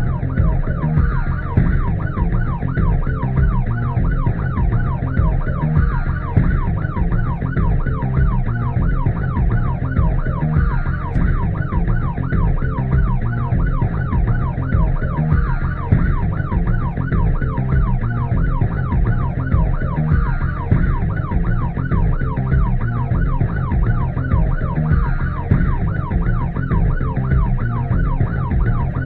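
Siren wailing in a rapid yelp, its pitch sweeping up and down several times a second, over background music with a heavy bass beat.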